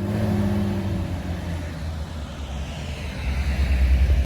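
UD Quester truck's diesel engine running under load on an uphill climb, a steady low rumble that grows louder about three seconds in.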